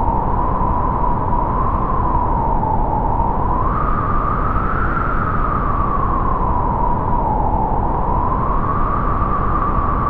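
Intro sound effect: a steady rumbling hiss with a single whistling tone that slowly wavers up and down in pitch.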